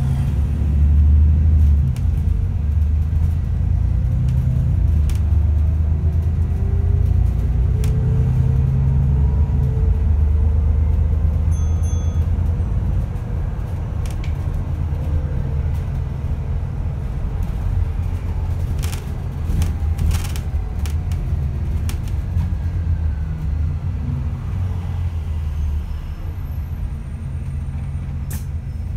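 Inside an ADL Enviro400 MMC Smart Hybrid double-decker bus under way: a steady low rumble of the drivetrain and road, with faint whines that rise in pitch early on and fall later as the bus speeds up and slows. A few sharp clicks come about two-thirds of the way through and again near the end.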